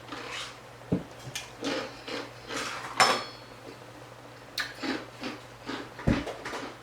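Dishes and cutlery clinking and knocking as they are handled on a table, a string of short sharp clatters with a couple of dull thuds, about a second in and near the end; the loudest clatter comes about three seconds in.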